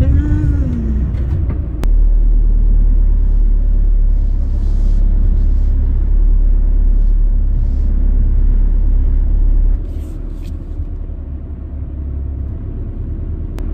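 Steady low road and engine rumble of a VW T6.1 camper van driving on a country lane. The level jumps up abruptly about two seconds in and drops again near ten seconds.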